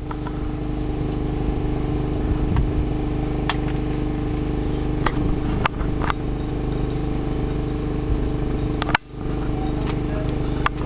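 A boat's engine running steadily under way: a constant, even hum, with a few light knocks on board. The sound cuts out for a moment near the end.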